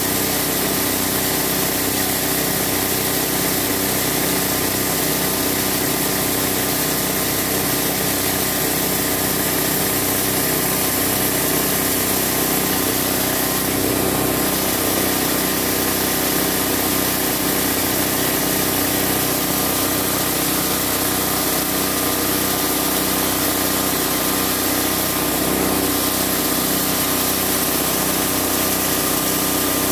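Small 7.5 hp petrol engine running steadily at constant speed, driving a fodder chopper.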